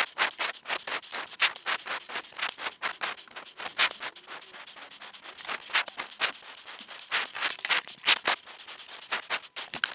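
Plastic side trim panel being handled and fitted back onto a BMW R1200GS motorcycle: a dense run of irregular clicks, taps and rattles.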